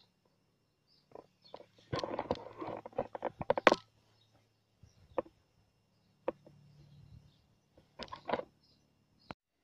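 Footsteps and rustling on a grass lawn: a busy patch of rustling and clicks about two seconds in, then a few scattered sharp clicks, over a faint steady low hum.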